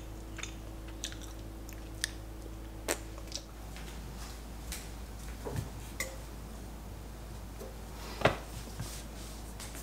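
Sparse small clicks and taps over a faint steady hum, with one sharper click about eight seconds in.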